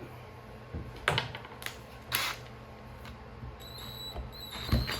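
A few sharp clicks and knocks of tools and metal chainsaw parts being handled on a workbench, with a louder mechanical noise beginning right at the end.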